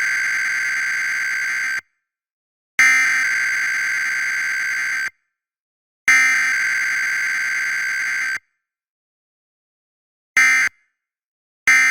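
Emergency Alert System SAME digital data bursts: three long screeching header bursts of about two seconds each, separated by a second of silence. Near the end come two short end-of-message bursts.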